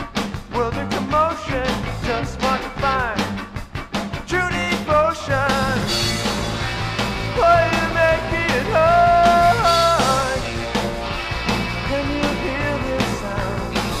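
Indie rock band playing a song, with dense, choppy parts at first and long held notes a little past the middle.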